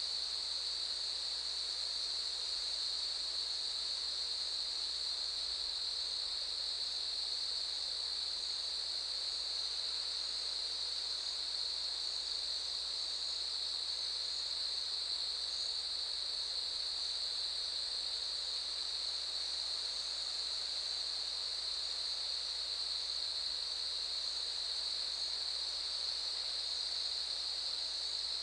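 Cicadas calling in a steady, unbroken, high-pitched buzzing chorus that holds one pitch and level throughout.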